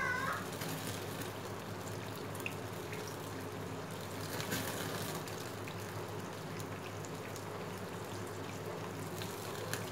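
Beaten eggs sizzling in hot oil in an iron pan while a metal spatula stirs them continuously, with a few light scrapes against the pan. A steady low hum runs underneath.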